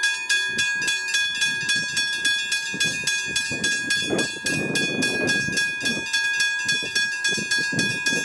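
Westinghouse hybrid level crossing bell ringing rapidly, about three strikes a second, with a steady ring. A train's running noise swells under it about four seconds in as a Siemens train pulls away.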